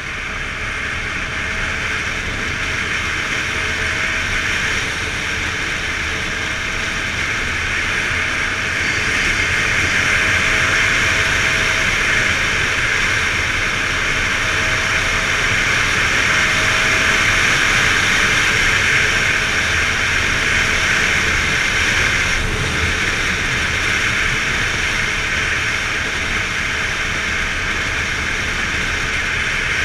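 Wind rushing over the camera's microphone on a moving Yamaha XTZ 250 Lander, with the motorcycle's single-cylinder four-stroke engine heard faintly underneath, its pitch shifting slightly. The rush grows a little louder through the middle.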